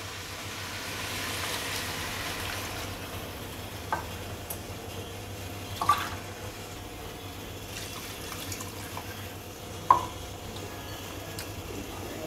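Water being poured into a stainless steel kadai of frying chicken pieces, hissing softly for the first few seconds. It then settles to a low simmer, with three light knocks of a wooden spatula against the pan.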